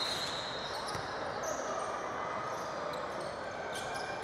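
Basketball game sounds in a gym: a ball bouncing on the hardwood floor and short high sneaker squeaks over the hall's steady background noise.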